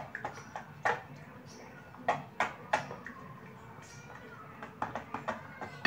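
A plastic spatula stirring thick, creamy soap gel in a large glass bowl. It knocks against the glass now and then in sharp, irregular taps.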